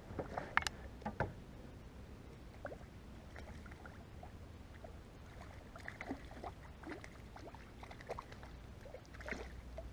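Scattered small knocks and light water sounds of someone moving about in a kayak, the loudest few clicks about a second in and another cluster near the end.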